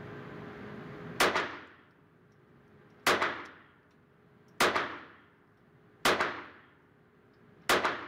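Five .22 LR pistol shots from a Kimber Rimfire Target, fired one at a time about one and a half to two seconds apart. Each crack is followed by a short ring-out in an indoor range.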